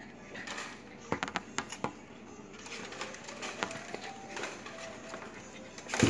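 Cat and small dog play-fighting on a tile floor: scuffling with a quick run of sharp clicks about a second in and a loud knock near the end.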